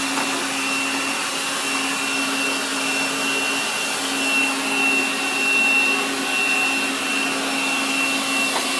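AIRROBO P20 robot vacuum running in edge-cleaning mode: a steady suction-fan whine over a low hum and airy rushing noise, with small swells in level.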